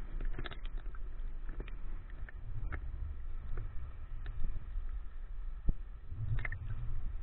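Small waves sloshing against a camera held half-submerged at the sea surface: a muffled low rumble of moving water with scattered sharp clicks and small splashes, swelling briefly about six seconds in.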